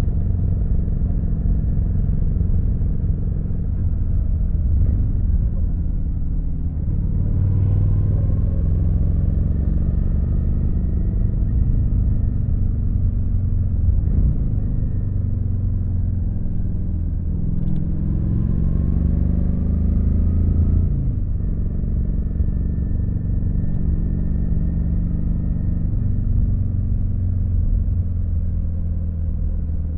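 Kawasaki VN900's V-twin engine running steadily while riding, rising in pitch a few times as it accelerates and dropping back at gear changes or when the throttle is rolled off.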